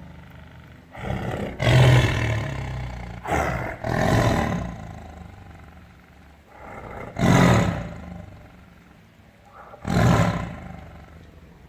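Tiger roaring: four loud calls about three seconds apart, each lasting about a second, the first two each broken into two parts.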